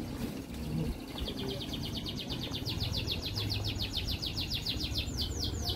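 A bird singing: a fast trill of short, high notes, about seven a second, starting about a second in and ending in three longer downward-sweeping notes, over a low background rumble.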